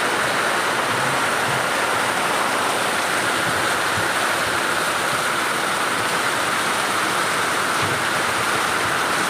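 Storm rain and wind making a steady, even rushing noise with no let-up.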